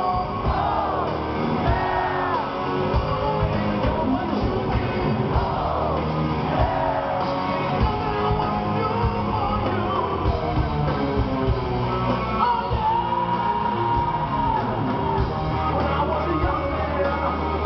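Live hard-rock band in a large hall: a male lead singer shouts and sings over electric guitar, bass guitar and drums, with a long held note about two-thirds of the way through.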